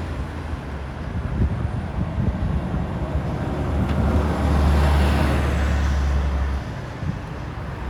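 Street traffic, with a motor vehicle passing close by about halfway through, its noise swelling and then fading.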